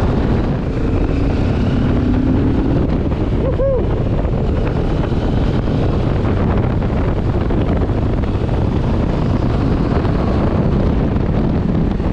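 Wind rushing over a helmet-mounted microphone, with the Benelli TRK 702's parallel-twin engine pulling under it as the motorcycle speeds up along the road. The engine note climbs for a couple of seconds about half a second in.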